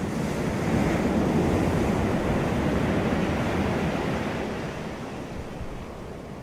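Sea waves breaking and washing in, a rushing noise that swells during the first second and fades away over the last couple of seconds.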